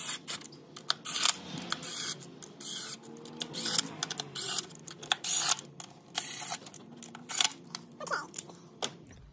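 Cordless drill-driver spinning bolts into an aluminium intake plenum in a string of short bursts, with sharp clicks between them; the bolts are only being run down to seat, not torqued.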